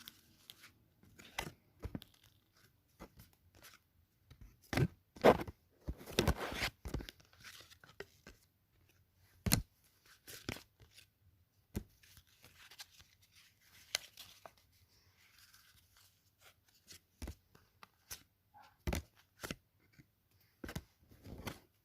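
Sports trading cards being handled and sorted by hand: irregular clicks and short papery scrapes and rustles as cards are flicked through and set down, with a louder cluster about five to seven seconds in.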